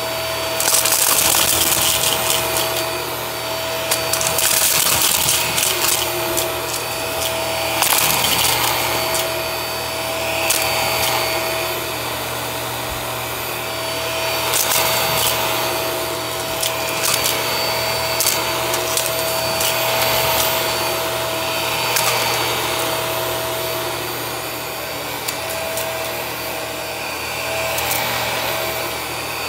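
Hart vacuum cleaner running with a steady whine while its brush roll sucks up confetti from carpet, with swells of crackling and sharp ticks every few seconds as the head is pushed back and forth.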